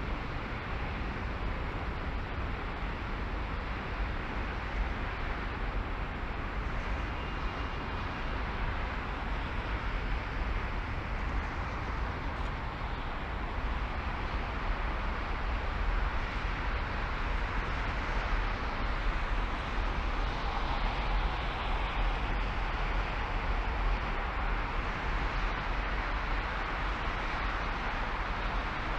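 Steady road noise of a car driving: tyre hiss and a low rumble, swelling slightly about two-thirds of the way through.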